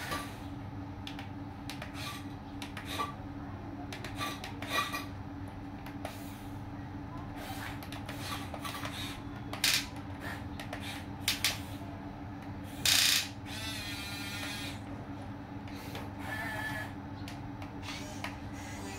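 Huina 1550 RC excavator's small electric motors and gearboxes whirring with a steady hum as it works its arm and bucket in sand, with scattered clicks and scrapes and one short louder burst about thirteen seconds in.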